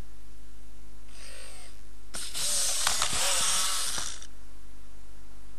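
i-Cybie robot dog's servo motors and gears whirring as it sits down: a short, faint whirr about a second in, then a louder whirr lasting about two seconds with a click in the middle.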